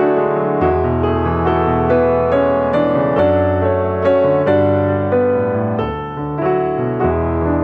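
Background piano music: a calm melody of single notes over held bass notes that change every second or so.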